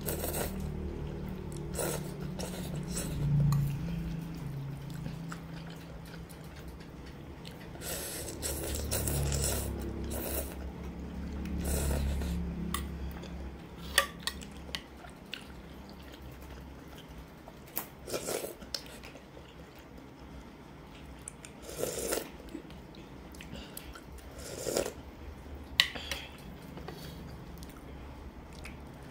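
Eating sounds: noodles being slurped and chewed, with a metal fork and spoon clinking sharply against a ceramic bowl a couple of times.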